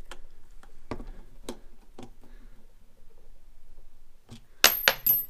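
A screwdriver turning a screw into the collar of an Eskimo Pistol Bit ice auger, with scattered light clicks of the tip in the screw. Near the end comes a sudden run of loud metallic clinks with a high ringing.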